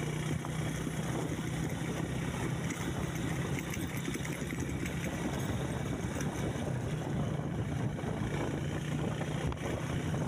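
A motor vehicle's engine running steadily with a constant low hum under a rushing noise of travel.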